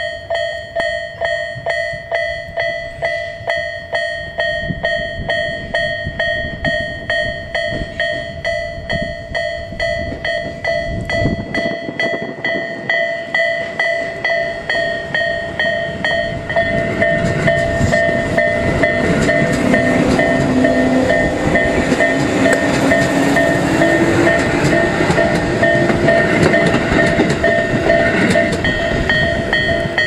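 Railway level-crossing warning bell ringing in a steady rhythm, about two strikes a second. From about 16 seconds in, a Tobu 800-series electric train rumbles through the crossing, louder than the bell, with a rising whine during the pass.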